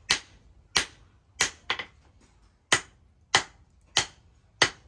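Hand hammer striking a red-hot axe head on a steel post anvil: eight sharp blows at a fairly even pace, two of them close together, each with a short ring.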